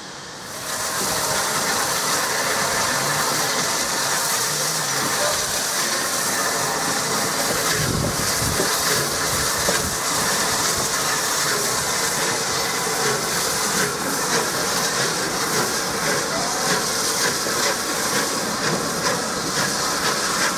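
Steam locomotive hauling a passenger train past, with a loud, steady hiss of steam escaping low around the engine's front and the running noise of the coaches on the rails.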